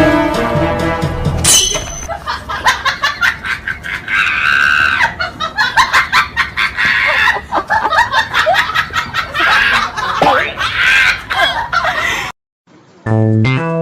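Music ends abruptly about a second and a half in, giving way to a busy stretch of rapid, repeated short squawking animal calls with clicks among them. Near the end the sound drops out briefly and plucked guitar music starts.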